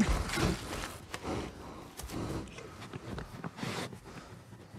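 Bear snuffling and breathing heavily at close range, with scattered rustles and a sharp click about two seconds in, growing fainter.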